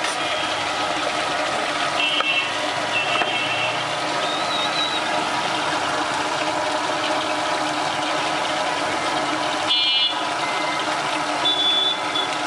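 Steady hiss of chicken skewers shallow-frying in oil on a flat griddle, mixed with busy street traffic noise. Several short, high horn beeps come about two seconds in, around ten seconds and near the end.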